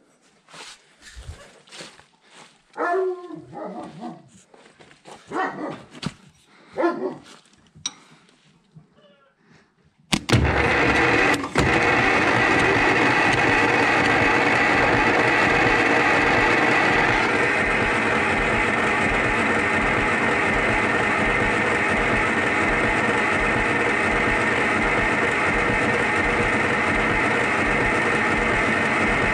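A few short sounds, then the electric starter suddenly cranks the Zetor 25's two-cylinder diesel at a steady speed with the decompressor held open, and the engine does not catch. The cranking eases slightly in loudness partway through.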